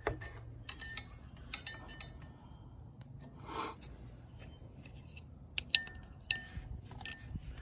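Scattered light metallic clinks and taps of a pry tool against a Toyota Prado 150's brake caliper and pads, some ringing briefly, as the caliper piston is levered back into its bore.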